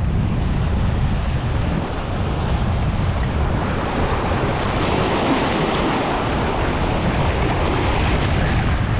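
Ocean surf washing in, one wave swelling up and breaking about halfway through, with wind buffeting the microphone as a steady low rumble.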